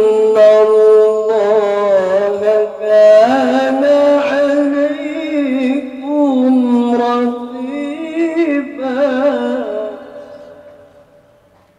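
A solo voice chants a slow, ornamented melody in long, wavering held notes. It starts abruptly and fades away near the end.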